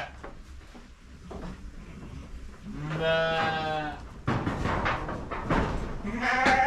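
Dopper sheep bleating: one low, drawn-out bleat lasting about a second, about three seconds in, and another starting near the end.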